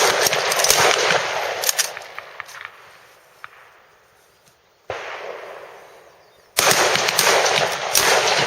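Rifle fire on a range from AR-15-type service rifles. A dense run of many overlapping shots dies away over about two seconds, a single shot comes about five seconds in, and another dense run of shots starts near the end.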